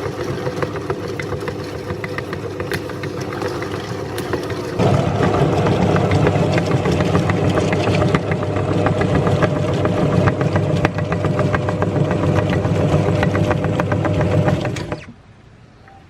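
Electric meat grinder's motor running with a crackling, grinding noise as a lemon goes through it. It grows louder about five seconds in, then stops suddenly about a second before the end.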